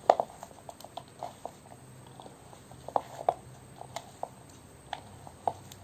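A hand mixing and squeezing a soft mashed filling with chopped onion and green chilli in a ceramic bowl: irregular soft pats and clicks, the loudest right at the start and a pair about three seconds in.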